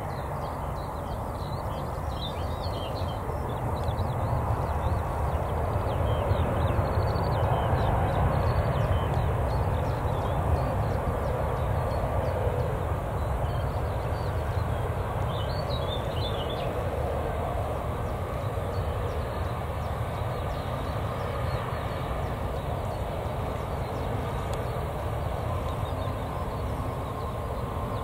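Jet airliner engines heard from a distance, a steady rumble that swells over the first ten seconds and then slowly eases. A few faint bird chirps sound over it.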